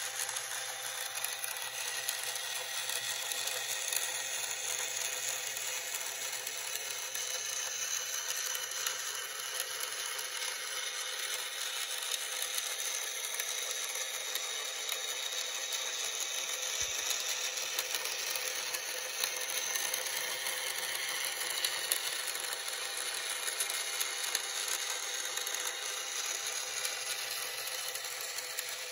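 Small electric motor and plastic gears whirring steadily.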